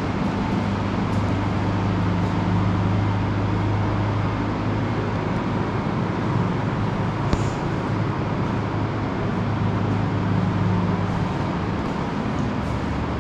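Steady low hum of a running motor vehicle over an even rushing background, with one short sharp click about seven seconds in.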